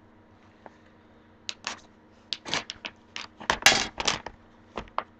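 A sealed plastic snack bag being stabbed and torn open: a string of sharp crinkles and clicks starting about a second and a half in, with the loudest tearing burst a little past the middle.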